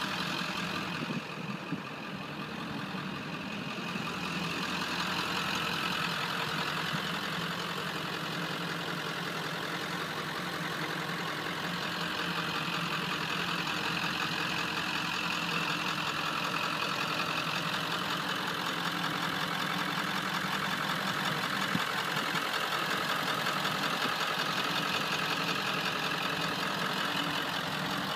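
1997 Ford F-350's 7.3-litre Power Stroke turbo-diesel V8 idling steadily.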